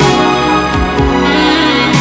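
Orchestral theme music with brass, playing a melody over a steady bass line.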